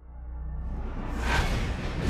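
Outro music fading in: a deep bass rumble with a whoosh that swells about a second and a half in.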